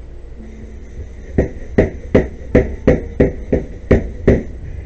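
A plastic computer case panel knocking against a wooden tabletop: a run of nine sharp knocks, about three a second, starting about a second and a half in.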